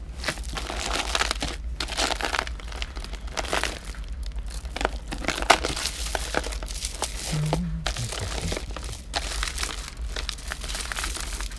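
Jewelry and bead necklaces being handled and sorted by hand: steady rustling with many small, irregular clicks and clinks.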